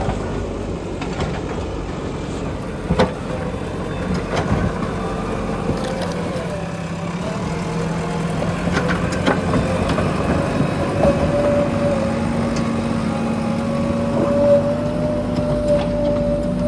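JCB backhoe loader's diesel engine running steadily under a held whine, with a few sharp knocks, the loudest about three seconds in.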